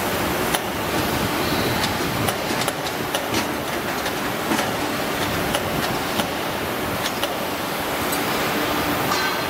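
Steady workshop background noise with scattered light metal clinks and knocks, about a dozen, as a combine harvester's steel chopper assembly is shifted and swung by hand.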